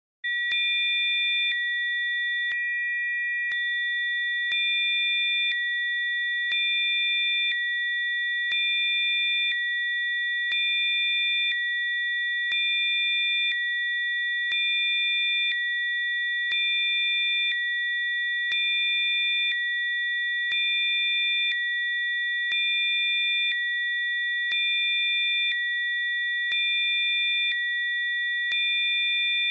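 Electronically generated sine tones, several steady high pure pitches sounding together as a sound-therapy frequency track. They start abruptly just after the beginning and step slightly louder for about a second every two seconds or so, with faint clicks at each change.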